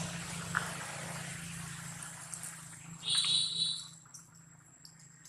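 A macaque's short, shrill squeal about three seconds in, over a hissy background.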